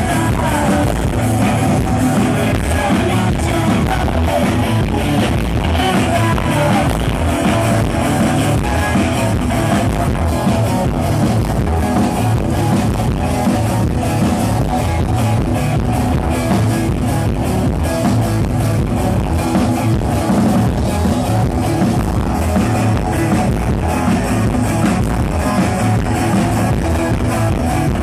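Rock band playing live and loud: electric guitars, bass and drums with a steady beat, recorded from the crowd.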